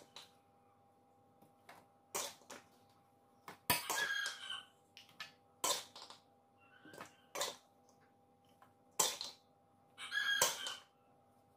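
Metal spoon scraping and clinking against a stainless steel tray as cooked eggplant sambal is scooped into it. The strikes are irregular, a dozen or so, some ringing briefly, with a faint steady hum beneath.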